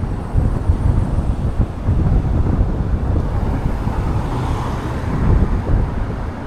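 Road traffic noise mixed with wind buffeting the microphone of a moving e-bike, a steady fluttering rumble with no distinct events.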